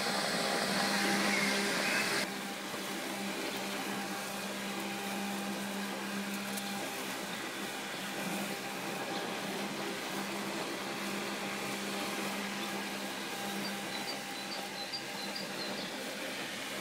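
Robomow RS630 robotic lawn mower running, a steady electric whir of its drive and blade motors with a low hum; the level drops slightly about two seconds in.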